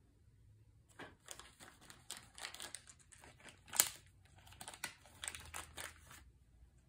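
Board-game packaging being crinkled and handled: an irregular run of crackles lasting about five seconds, with one sharp crack near the middle.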